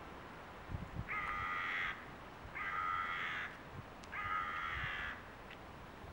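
A crow cawing three times, each call drawn out to nearly a second with short pauses between.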